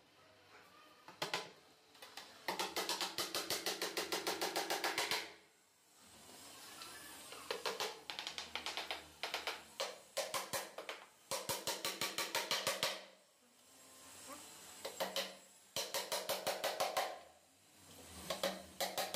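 Background music with rapid drum rolls: several runs of quick, evenly spaced strikes, about nine or ten a second, each run stopping abruptly before the next one starts.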